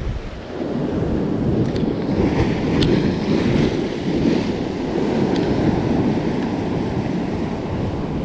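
Ocean surf washing and breaking over a rock ledge, mixed with wind buffeting the microphone; the wash swells up about half a second in and keeps surging.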